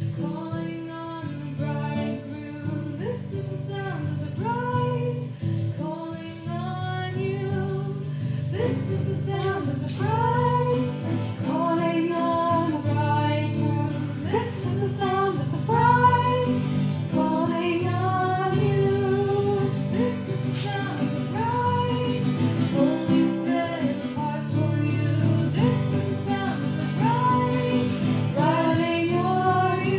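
Music: a woman singing a Christian worship song over guitar accompaniment.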